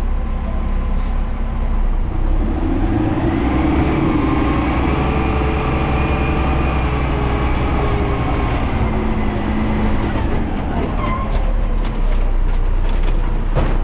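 Side-load garbage truck's engine rising in pitch about two seconds in and holding high while the truck works, then dropping back to idle around the eleven-second mark; a few sharp knocks near the end.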